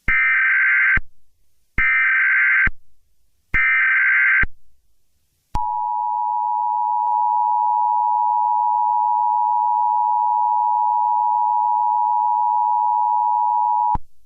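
Emergency Alert System header and attention signal: three short screeching data bursts about a second apart, then a long, steady two-tone alert tone that cuts off sharply near the end, announcing the start of a new alert message.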